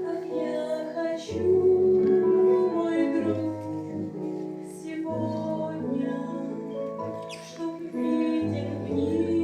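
Music: a melody of held notes over a bass line that changes every second or two, with a few light ticks.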